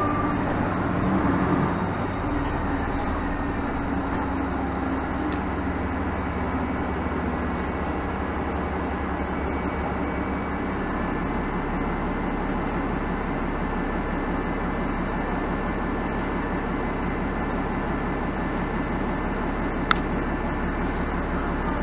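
Cabin noise of a 2017 Nova Bus LFS diesel city bus under way: a steady low engine and road rumble. A single sharp click sounds near the end.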